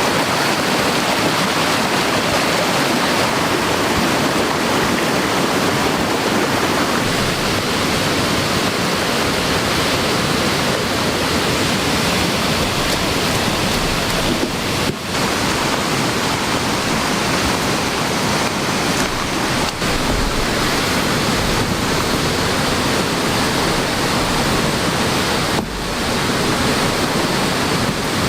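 Heavy rain together with a swollen mountain stream in spate, a loud, steady, even hiss of water with a few momentary dips.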